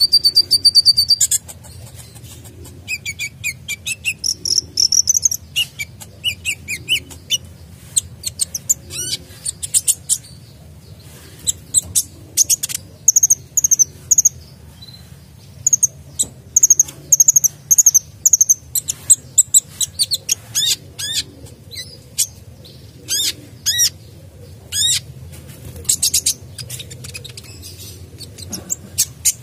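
Male sunbird singing: bursts of rapid, very high-pitched chirps, thin trills and quick twitters, with short pauses between phrases. A faint steady low hum runs underneath.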